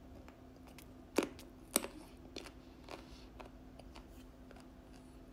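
Close-up chewing of crisp, unripe mango slices: two sharp crunches about a second in and half a second later, then softer crunches as the chewing goes on.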